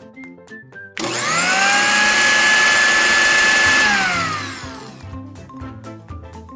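Small personal blender motor switching on about a second in, its whine rising quickly to a steady high pitch as it purees fruit chunks into juice, then falling in pitch as it winds down a little after four seconds. Soft background music plays under it.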